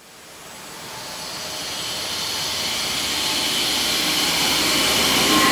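Cinematic whoosh sound effect: a rush of noise that grows steadily louder over several seconds and peaks near the end.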